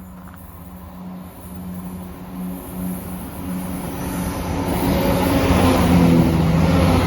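Class 170 Turbostar diesel multiple unit approaching, its steady diesel engine note growing steadily louder. Wheel and rail noise builds over the last few seconds as the train draws near.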